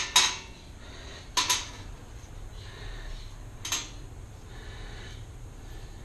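Small metal hardware (interlock washers, nuts and bolts) clicking against a tiled counter as it is picked up and set down: a sharp click at the start, another about a second and a half in, and a lighter one near four seconds. Faint breathing in between.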